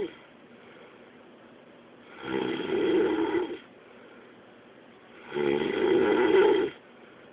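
Loud snoring in a regular rhythm: two snores, each about a second and a half long and about three seconds apart, with quiet breathing gaps between them.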